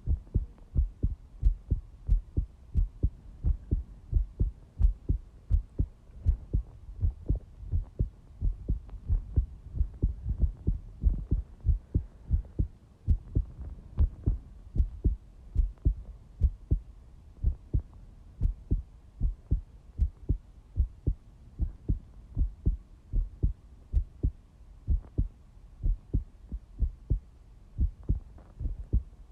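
Recorded heartbeat: regular low thumps in a steady lub-dub rhythm.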